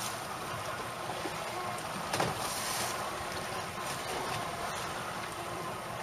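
Steady wind and sea noise aboard an open fishing boat, with a single short knock about two seconds in.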